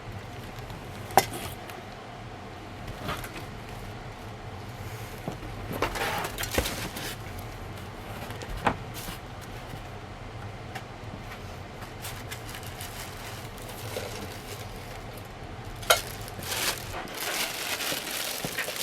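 Hands handling unboxed ceiling fan parts and packaging: scattered clicks and light knocks, with rustling near the end. A steady low hum runs underneath and fades out near the end.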